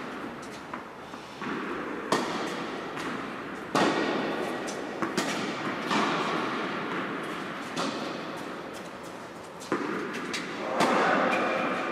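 Tennis rally: rackets striking the ball and the ball bouncing on the court. There is a sharp hit about every one to two seconds, each ringing on in the echo of a large indoor tennis hall.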